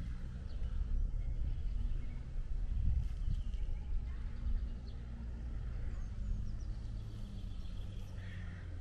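Outdoor ambience: a steady low rumble of wind on the microphone, with small birds chirping in the background, a few short falling chirps about six seconds in.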